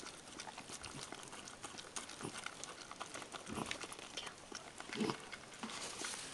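Dog whelping a puppy: a few short low grunts, the loudest about five seconds in, among small wet clicks and rustles of newspaper as the newborn puppy is handled.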